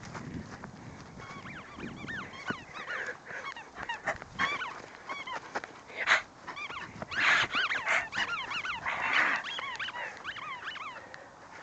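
A dog giving many short, high squealing yips in quick succession while running and playing, each one rising and falling in pitch. A few louder rushes of noise come about six, seven and nine seconds in.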